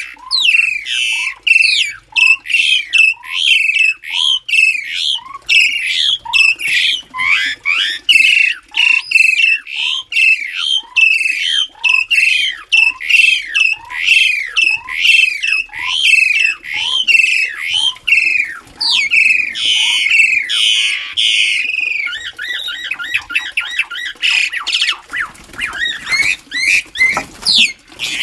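Javan pied starling (jalak suren) calling: a loud, harsh call repeated about three times every two seconds, each call falling in pitch. About twenty seconds in it changes to a rapid chattering trill.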